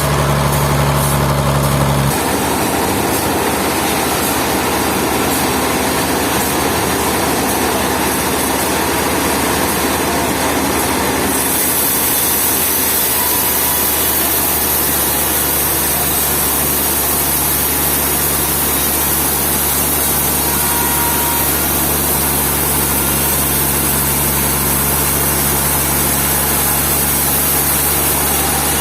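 An engine running steadily, its note shifting about two seconds in, with a high hiss joining about halfway through.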